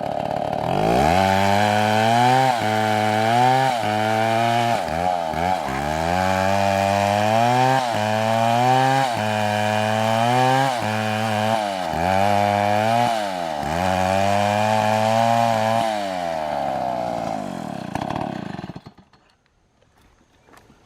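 Petrol chainsaw cutting wood under load. The engine starts at a high free-running whine, drops to a lower pitch about a second in, then sags and picks up again about once a second as the chain bites. Near the end it revs free, winds down and falls silent.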